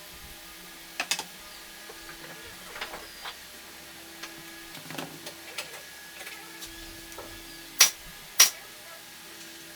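Scattered light clicks and taps over a faint steady hum, with two sharp knocks about half a second apart near the end: workpieces and tool parts being handled and set down.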